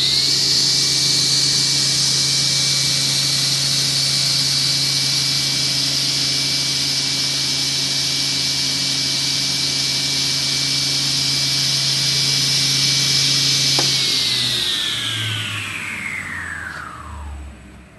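Altendorf F45 sliding table saw coming up to full speed, then running steadily with a loud whirring hiss, apparently without cutting. About fourteen seconds in it is switched off and winds down, its pitch falling over three or four seconds until it stops.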